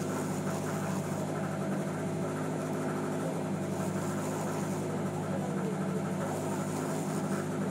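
Engine on a fishing boat running steadily: an even, unchanging low drone.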